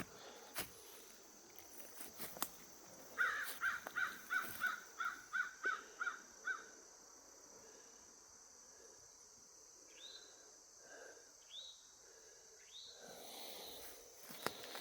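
Crow cawing: a quick, even run of about ten caws, roughly three a second, followed a few seconds later by a few faint, short rising bird calls.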